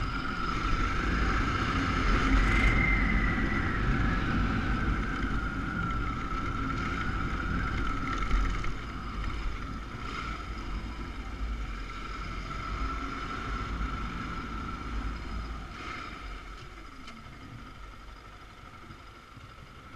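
Motorcycle engine running while riding, with heavy wind noise on the microphone; the sound gets steadily quieter through the second half as the bike slows down.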